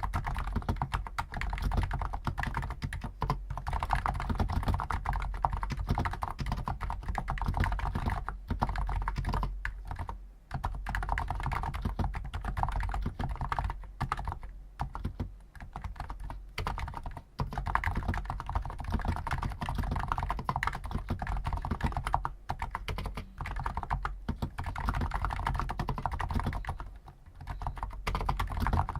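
Fast continuous typing on a Hansung GTune CHL5 XRGB electro-capacitive keyboard with stock 50 g switches, a dense run of keystrokes with a few short pauses.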